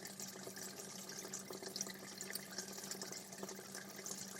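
Medium-size aquarium with water flowing in and small bubbles popping at the surface: a steady trickle with many small bubbling pops over a low steady hum.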